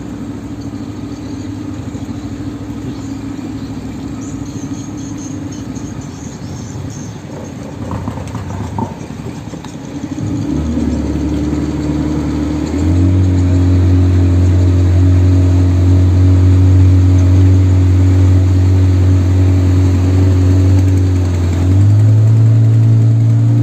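Motorboat engine running at a steady pitch, opened up about ten seconds in and again a few seconds later, becoming much louder with a deep hum, then pitching up once more near the end.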